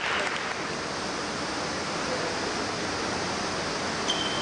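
Steady, even hiss of background noise in a large sports hall, with no ball strikes. A short high squeak comes near the end.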